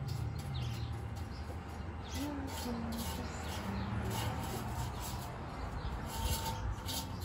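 Birds calling, with repeated short high chirps and a dove cooing a little past two seconds in, over a steady low background hum.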